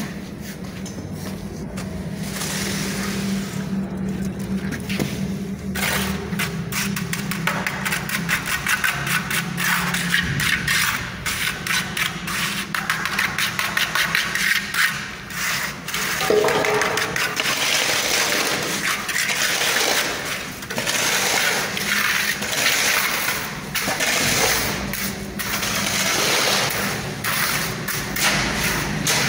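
Wet cement mortar being scraped and smoothed by hand around the rim of a small sewer manhole opening, in many short rubbing strokes. A low steady hum runs under the first part and fades about ten seconds in.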